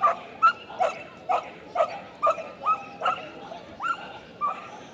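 A dog barking over and over in an even rhythm, about two short barks a second, as it runs an agility course.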